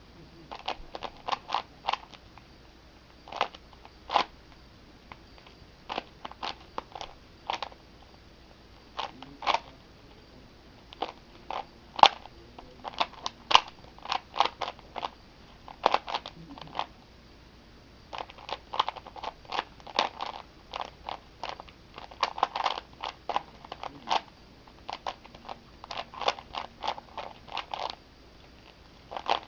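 A Rubik's cube with Lego plates glued on in place of the stickers being turned fast in a speedsolve: quick clusters of plastic clicks and clacks from the layers turning, with short pauses between runs of moves.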